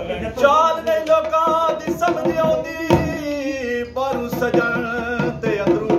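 A man singing a Pothwari verse in a drawn-out, ornamented melody over a dholak drum beat; in the last couple of seconds the singing is shorter and the drum strokes come steadily, about four a second.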